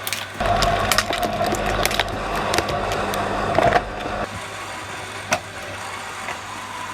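Industrial 18-blade shredder running; about half a second in its blades bite into an aerosol can of shaving foam, with about four seconds of loud crunching and sharp cracks as the can is torn apart. The motor then runs on unloaded, with one more crack a little after the middle.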